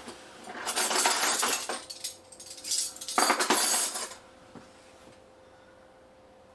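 Aluminum coffee-maker parts and dishware clinking and scraping as they are handled, in two bursts of about a second and a half each, the second around the middle; after that only a faint steady hum.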